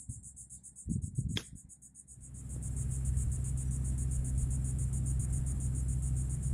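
A golf chip with a 56-degree sand wedge: one crisp click of the clubface striking the ball about a second and a half in. Crickets trill steadily in a high pulsing buzz throughout, and from about two seconds in a steady low rumble sets in.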